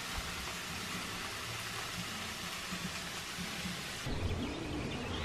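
Steady sizzling hiss of meat frying on a comal, cutting off abruptly about four seconds in, where a quieter outdoor background takes over.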